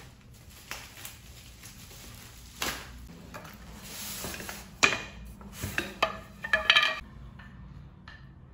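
Wooden parts and dowels of a flat-pack stand being handled, knocking and clacking against each other and a tile floor. The knocks are scattered and sharp, thickest in the second half, and a few give a short ringing clink.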